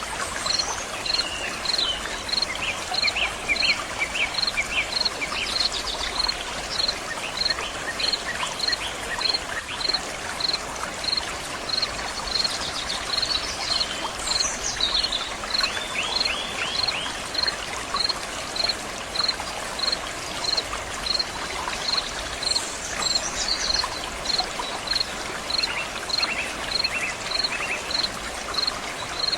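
Stream water flowing and splashing steadily. A high chirp repeats evenly, a little under twice a second, and bird calls come in now and then.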